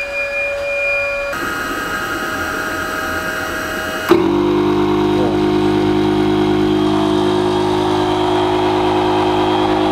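Stermay HT-782 two-stage electric pump running steadily as it inflates a PVC boat, on its low-pressure first stage. About four seconds in the sound jumps abruptly to a louder, deeper steady hum.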